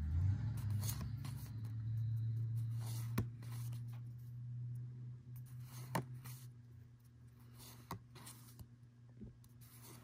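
Pokémon trading cards being slid off the front of a hand-held stack one after another, with papery scraping swishes and small ticks. Under them is a low steady hum that fades over the first half.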